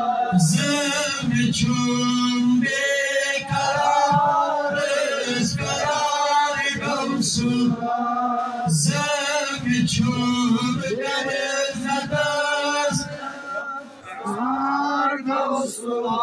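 A man singing a devotional chant solo, in long melodic phrases with short breaks for breath between them.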